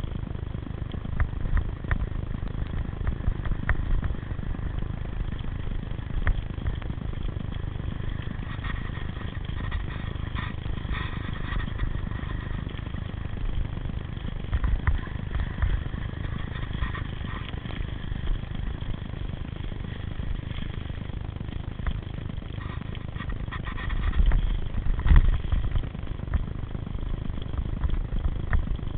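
Bicycles ridden over a dirt forest singletrack: a steady rumble of tyres and wind on the microphone, with frequent small rattles and knocks from the bikes bumping over roots and stones. The rumble grows louder for a couple of seconds near the end.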